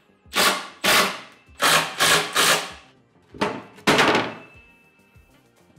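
Short wooden knocks and scrapes, about seven in the first four seconds, as a laminated wood board is handled and set onto a square-steel-tube desk frame.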